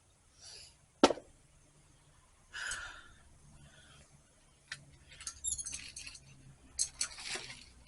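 Goods being handled and moved about in a dumpster: one sharp, loud knock about a second in, then scattered clinks and rustling of packages.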